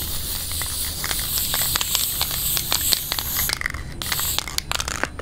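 Pressurised gas hissing steadily with many small crackling clicks, cutting off about three and a half seconds in; a few scattered clicks follow.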